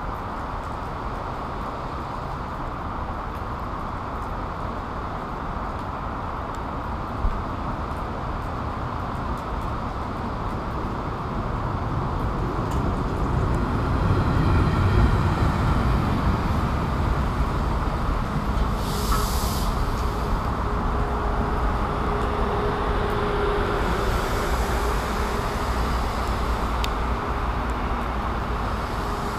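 Amtrak Cascades Talgo passenger trainset passing at speed: a rumble of wheels on rail builds from a steady background hiss, is loudest as the front of the train goes by about halfway through, and carries on as the cars keep passing. A brief sharp hiss comes a few seconds after the front passes.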